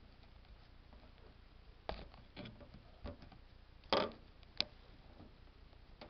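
A few short knocks and clicks over a faint steady hiss, the loudest about four seconds in.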